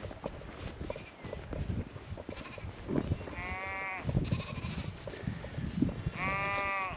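Sheep bleating twice, each a wavering call just under a second long, about three and six seconds in, over a steady low rumble and scattered small knocks.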